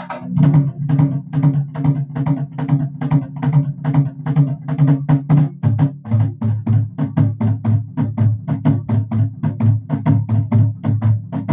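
Nagada (nagara) kettle drums beaten with sticks in a fast, steady rhythm of about four to five strokes a second. About halfway through, the strokes drop lower in pitch.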